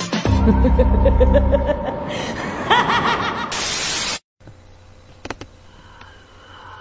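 Soundtrack of a pre-recorded promo clip: a laughing sound effect over a low rumble, then a loud burst of hiss that cuts off abruptly a little over four seconds in, leaving only faint room tone with a couple of soft clicks.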